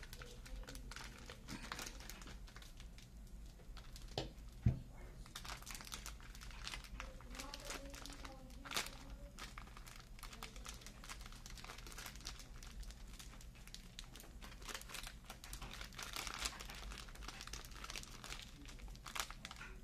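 Foil pouch crinkling and crumpling as small hands squeeze and shake it empty over a stainless steel mixing bowl, with a single thump about four and a half seconds in.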